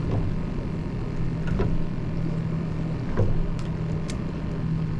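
A boat's motor running with a steady low hum, under wind and water noise. Three short slaps come about a second and a half apart.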